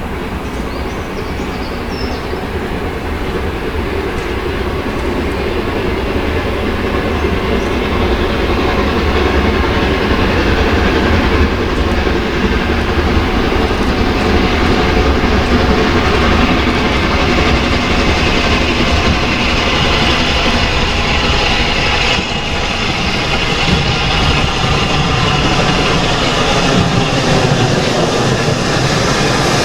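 Steam-hauled train running past the lineside, growing louder over the first ten seconds or so and then holding steady.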